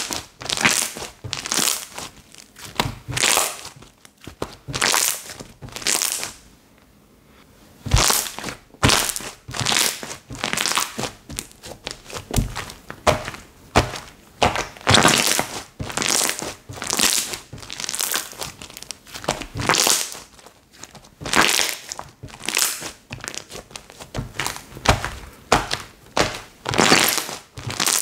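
Slime being squished and pressed by hand: a run of crackly squelches, about one or two a second, with a pause of about two seconds a quarter of the way in.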